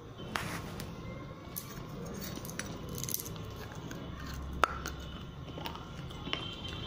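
Teeth biting and cracking a piece of broken terracotta clay diya: a string of sharp clicks and crunches, with the loudest crack about four and a half seconds in.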